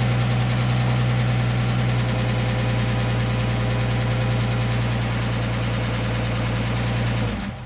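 2010 Dodge Charger's 3.5-litre V6 engine idling steadily as it warms up on a freshly replaced timing belt, water pump and thermostat. The sound cuts off near the end.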